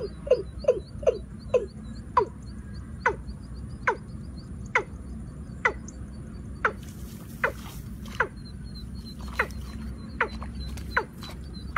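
Watercock calling: a series of short, downward-sliding notes, about three a second at first, then slowing to roughly one a second. Two brief hissy rustles come in around the middle and near the end.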